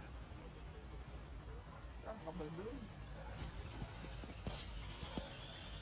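Steady high-pitched chorus of insects, with faint distant voices about two seconds in.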